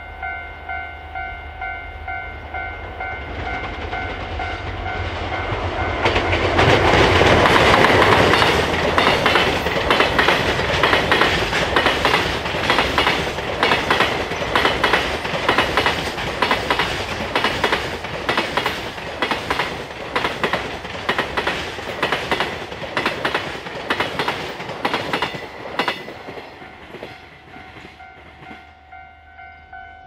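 Level-crossing warning bell ringing with a steady pulsing ding, about one and a half a second, while a long JR Freight container train passes. The train swells in about three seconds in and is loudest around eight seconds. Its container wagons then clatter over the rail joints for nearly twenty seconds before the noise drops away near the end, leaving the bell ringing alone.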